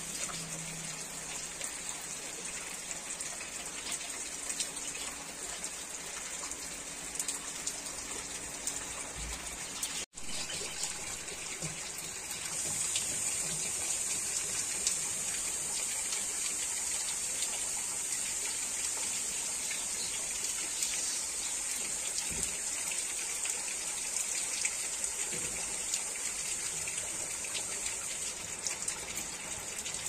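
Heavy rain falling, a steady hiss of water. The sound cuts out for an instant about ten seconds in, then comes back a little louder.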